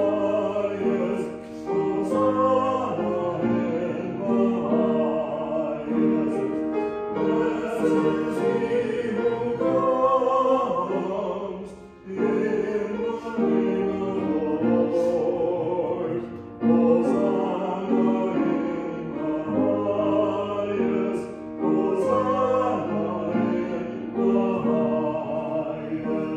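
Many voices singing a hymn with organ accompaniment, in phrases with short breaks between them. The last chord ends at the close and dies away in the room.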